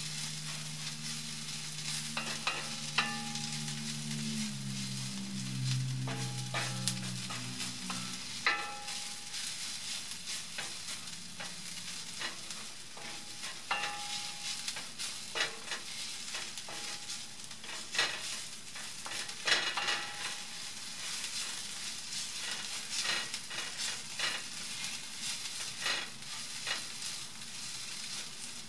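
Sliced purple onions sizzling in hot coconut oil in a black skillet, with the wooden spatula scraping and knocking against the pan in irregular clicks as they are stirred.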